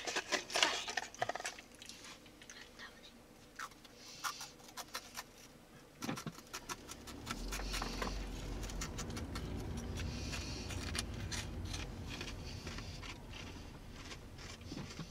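Irregular crisp crackles and clicks of crunchy corn puffs being eaten for about the first six seconds. About seven seconds in, the low steady rumble of the car driving comes in and holds.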